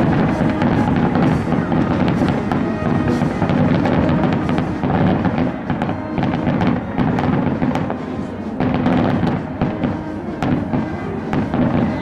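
Daytime fireworks going off in a rapid, continuous string of bangs and crackles, with music playing underneath throughout.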